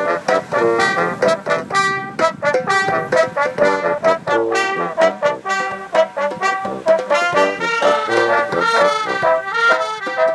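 Small brass band of trumpets, other brass horns and a sousaphone playing a tune in short, quick notes, with a hand-held drum beating along.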